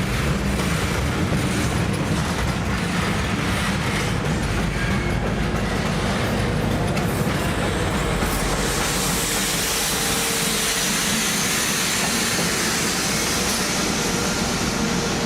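Train running past on the tracks: a steady low rumble, then from about eight seconds in a louder high hiss of running gear on rail.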